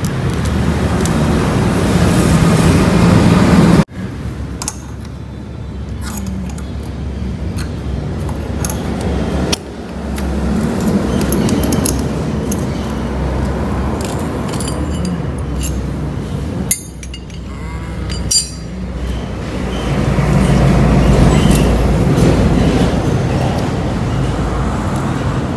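Light metal clinks of engine parts handled by hand at an open motorcycle crankcase, over a steady low mechanical hum. The sound drops out suddenly a few times.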